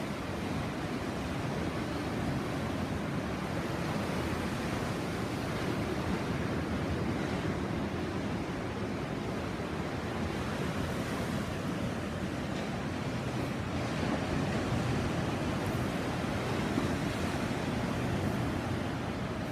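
Sea surf: waves washing in as a steady, continuous rush, swelling slightly about two-thirds of the way through.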